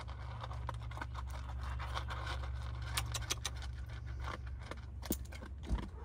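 Dog eating from a collapsible plastic bowl: irregular crunches, clicks and scrapes against the bowl. A steady low hum runs underneath.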